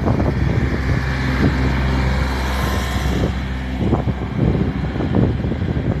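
A motor vehicle's engine runs nearby as a steady low rumble, with wind noise on the microphone.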